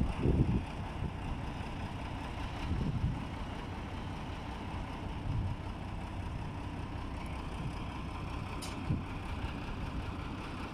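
Steady low rumble of a mobile crane's diesel engine running, with wind buffeting the microphone at the start.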